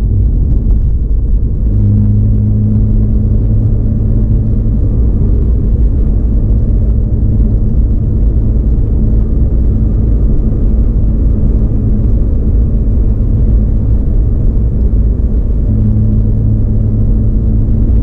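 Mazda RX-8 with its rotary engine, driving: a steady low rumble of engine and road noise, with a low engine hum that grows louder about two seconds in, eases off a few seconds later and comes back near the end.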